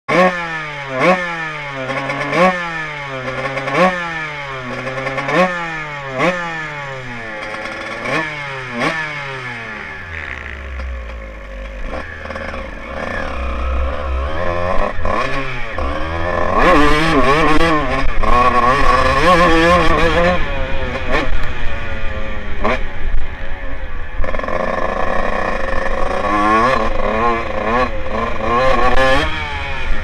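Kawasaki KX125 125cc two-stroke single-cylinder engine, blipped repeatedly at first, each rev rising and falling about once a second. Then the bike is ridden, the engine revving up and down, louder, with wind rushing over the microphone.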